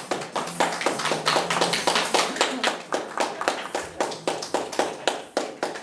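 Many hands clapping together in time, about three to four claps a second, fading near the end.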